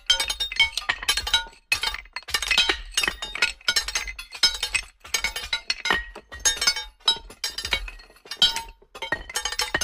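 Metal tools striking and scraping a boulder: quick clusters of sharp metal-on-rock hits that clink and ring briefly, with short pauses between the clusters.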